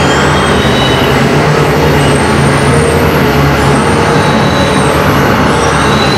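Loud electronic noise music: a dense, unbroken wash of noise over a steady low hum, with thin whistling tones sliding up and down in pitch high above it.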